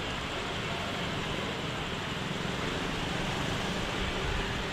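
Steady rushing ambient noise with a low rumble underneath and no distinct events.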